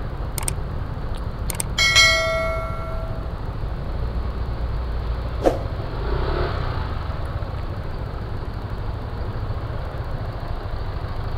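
Steady low rumble of a motor scooter ride in traffic. About two seconds in, a single bell-like ding rings out and fades over about a second, just after two short clicks.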